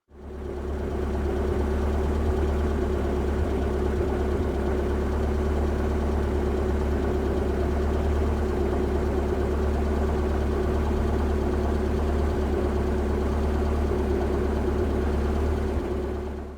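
All-terrain vehicle's engine running at a steady, unchanging speed. It fades in over about a second and fades out near the end.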